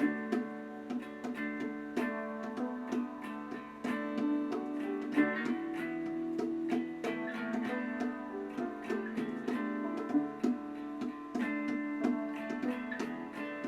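Background music of a plucked acoustic guitar or ukulele playing a light, steady tune with regular plucked notes.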